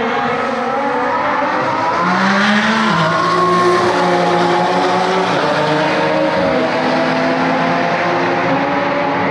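Two race cars accelerating hard side by side down a drag strip from a rolling start. Their engines rise in pitch and drop back at each upshift.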